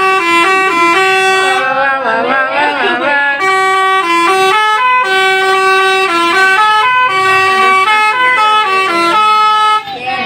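Indonesian bus 'telolet' musical horn (Basuri-type multi-tone horn) playing a tune of short stepped notes in several phrases. About two seconds in, the horn breaks off briefly and voices shout.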